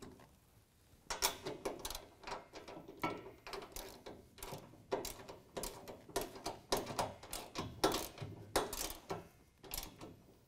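Hand ratchet clicking in quick, irregular runs as the rack's bulkhead mounting bolts are tightened, starting about a second in and stopping shortly before the end.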